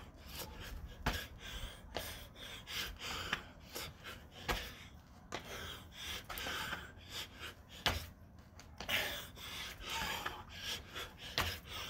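A person breathing hard through a set of burpees, with repeated irregular taps and thumps as hands and feet land on an exercise mat.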